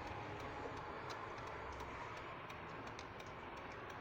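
Light, repeated ticking over the steady hum of a car interior, typical of a turn-signal indicator clicking.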